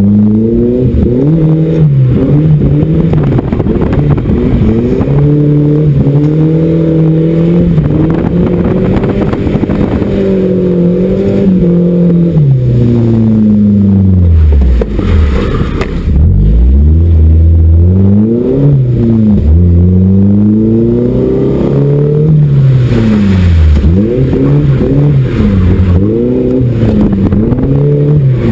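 Volvo drift truck's engine revving hard, its pitch repeatedly climbing and dropping, with two deep drops in revs partway through.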